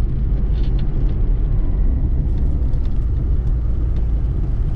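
Austin Allegro 1500's E-series four-cylinder engine and road noise heard from inside the cabin while driving: a steady low rumble.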